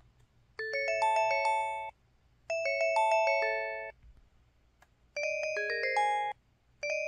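Four short system-tone jingles from an LG Cyon KP4400 phone's Yamaha YMU783B-W 64-voice synth chip, each a quick run of stacked chime-like notes lasting just over a second and cutting off abruptly, with short gaps between them.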